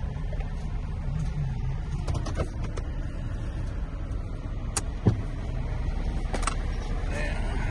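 Chevrolet pickup idling, heard from inside the cab as a steady low rumble. A few light clicks and one short thump about five seconds in.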